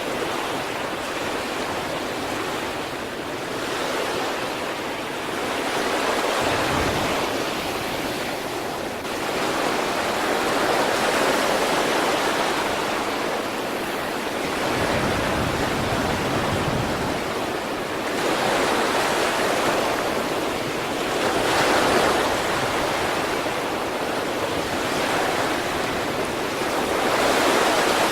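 Sea waves breaking on the shore, a continuous surf wash that swells and eases as each wave comes in, about every four to five seconds.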